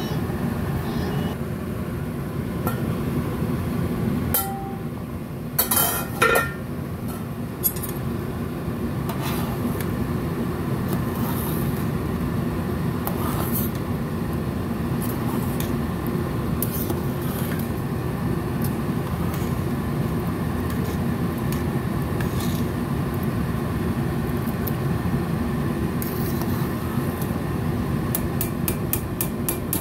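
Metal spoon stirring a thick meat sauce in a stainless steel pot, knocking and scraping against the pot, with the loudest knocks about six seconds in and a quick run of light taps near the end, over a steady low rumble.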